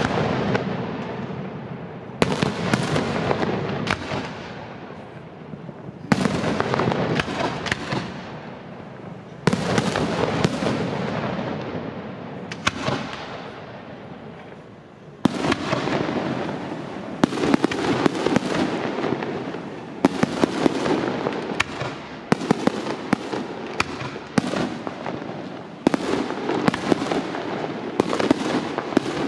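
Aerial fireworks shells bursting one after another, each sharp bang followed by a long crackling tail that dies away. The bursts come about every three seconds at first, then faster, every second or two, in the second half.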